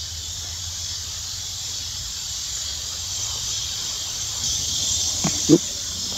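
Steady insect chorus, an even high hiss, over a low rumble, with a brief short vocal sound about five seconds in.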